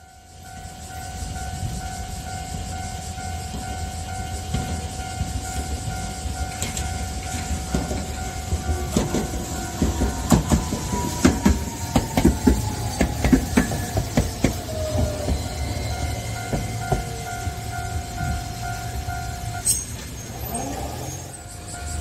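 A level-crossing warning bell ringing in a steady pulsing pattern while a Kagoshima City tram, car 7001, passes close by. The tram's wheels click rapidly over rail joints and the crossing for several seconds, with a slowly falling whine. The bell stops a couple of seconds before the end, as the barrier lifts.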